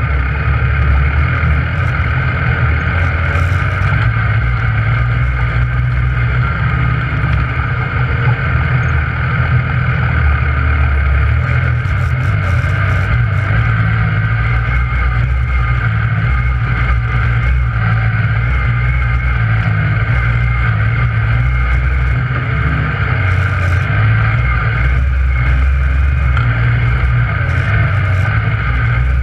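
Yamaha YXZ1000R side-by-side's three-cylinder engine running steadily, heard from inside the cab, with a few brief rattles or clicks.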